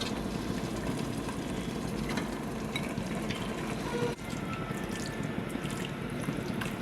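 Chicken pieces cooking in onion-tomato masala in a pressure cooker, a steady sizzling and bubbling, with a brief dip about four seconds in.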